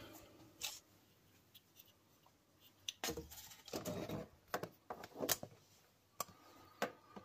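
Faint handling noises of a wooden-handled Opinel folding knife being picked up and moved about on paper: scattered light clicks and taps, with a brief scraping rustle about three to four seconds in and two sharp clicks near the end.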